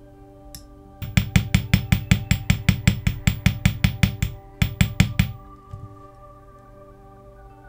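A small hammer tapping metal in a quick, even series of about twenty sharp strikes, roughly five a second, with a brief pause before the last few. Soft background music runs under it.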